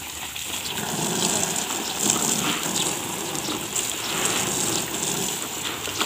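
A thick jet of watering water splashing onto bare soil and a banana plant: a steady, noisy rush and spatter.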